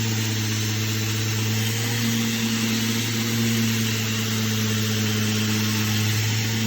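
Electric power sander running steadily on timber weatherboards: a constant motor hum under an even hiss of the abrasive on the wood.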